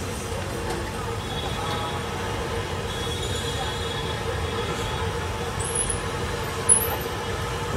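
Steady low rumble with a constant hum, like machinery running in the background. About two-thirds of the way in comes a short, sharp sputter as ketchup is squeezed from a plastic squeeze bottle.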